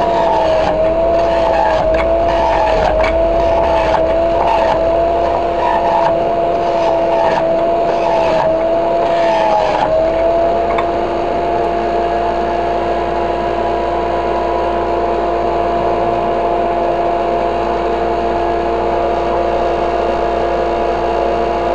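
Omega centrifugal juicer running with a steady motor whine. For the first ten seconds or so vegetables are pressed down the chute: the pitch wavers under the load and there are crunching clicks. After that it runs on steadily with no load.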